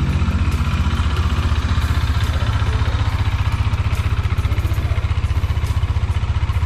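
Bajaj Dominar 400's single-cylinder engine idling steadily, with an even low thudding beat and no revs.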